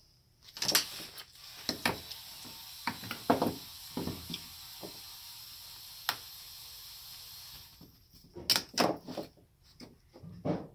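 Pliers and hand tools clicking and knocking against a Mikuni carburetor's body and fittings while a fuel hose is worked off its fitting. A steady hiss runs under the clicks and stops about two-thirds of the way through.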